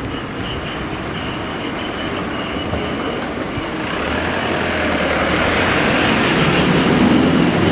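Doctor Yellow, the 923-series Shinkansen inspection train, running slowly through the works yard and getting louder as it approaches, with a low hum coming in about halfway through. A faint high tone repeats a few times a second under it in the first half.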